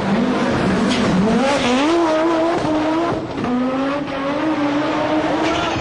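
Audi Quattro rally car's turbocharged five-cylinder engine running hard at high revs. Its pitch climbs, drops sharply twice around the middle as it shifts gear, then rises again toward the end.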